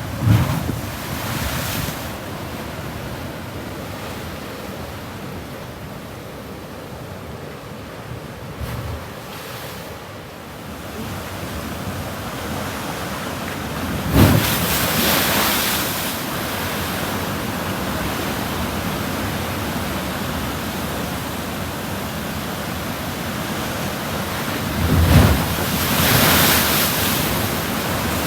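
Ocean surf washing and breaking, with three heavier waves crashing near the start, about halfway and near the end. Wind buffets the microphone.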